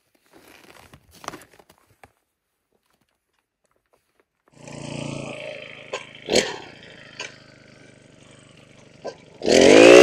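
Faint rustling at first, then a gas-powered ice auger's small two-stroke engine idling with a few sharp clicks. About half a second before the end it revs up loudly and climbs in pitch as the auger is throttled up to drill the ice.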